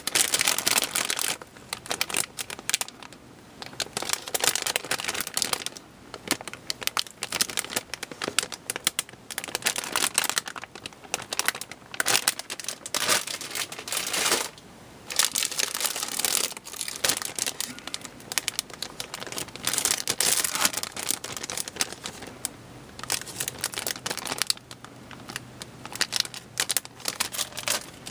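Clear plastic bags around plastic model-kit parts runners crinkling and rustling as they are handled, in uneven spells broken by short lulls.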